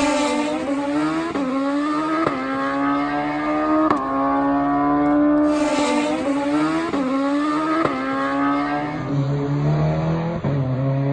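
Suzuki Hayabusa drag bike's engine running at high revs down the strip, its note breaking and jumping in pitch about once a second. Near the end it drops to a lower, steadier note.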